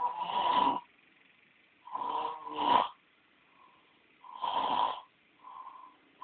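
A sleeping person snoring: a loud snore on each breath about every two seconds, the one about two seconds in in two parts, then a fainter one near the end.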